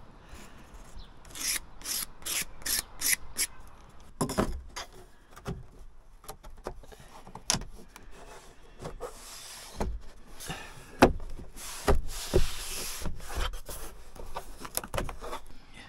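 A thin wooden panel being pushed and fitted into place against a van's interior wall: rubbing and scraping strokes, a quick run of them in the first few seconds, with scattered light knocks and a couple of longer scrapes later on.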